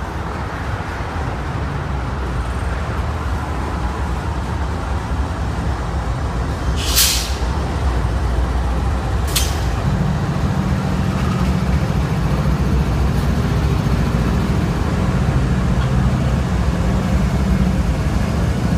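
Slow freight train rolling past with a steady rumble of wheels on rail, broken midway by two short sharp air hisses a couple of seconds apart. From about halfway, the shoving GE diesel locomotives (GEVO units) pass working under power, and their deep engine drone takes over.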